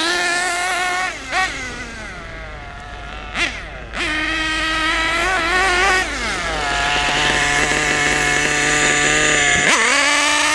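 Kyosho MP9 buggy's KE21 nitro engine running rough: a few quick throttle blips, a steady higher note, then a drop to a lower steady idle about six seconds in, and a sharp rev near the end.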